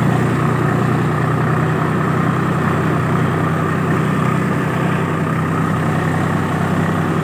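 Mahindra 575 DI tractor's diesel engine running at a steady speed.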